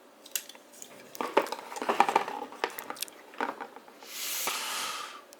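Light clicks and clatter of hard plastic being handled, a toy figure's parts knocking and moving, with a rush of noise lasting about a second starting around four seconds in.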